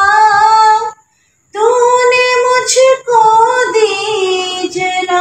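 A woman singing a devotional hymn in Urdu, solo and unaccompanied, holding long notes. The singing breaks off for about half a second near one second in, then resumes.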